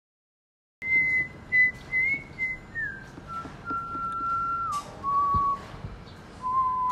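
A person whistling a slow tune that starts about a second in after silence: clear single notes, mostly stepping down in pitch with small slides between them and one long held note in the middle.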